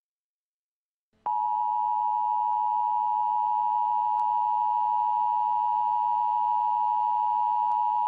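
US Emergency Alert System attention signal: the steady two-tone alert tone (853 and 960 Hz), starting about a second in after a short silence and holding unbroken.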